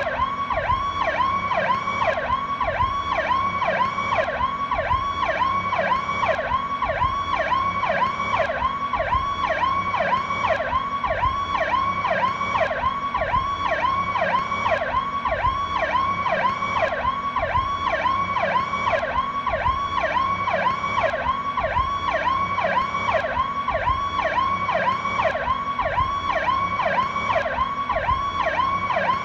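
Police siren sounding its Powercall tone: a fast, even cycle of pitch sweeps rising and falling, about two a second, repeating without a break.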